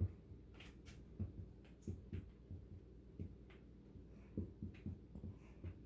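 Dry-erase marker writing on a whiteboard: faint, irregular soft knocks and taps as the marker strikes and moves across the board, over a low steady room hum.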